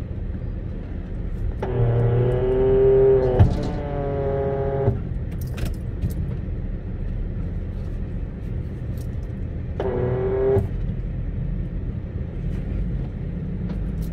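Ford F-350 tow truck's engine running steadily, heard from inside the cab. A whine with many overtones rises over it for about three seconds starting near two seconds in, and comes again briefly around ten seconds.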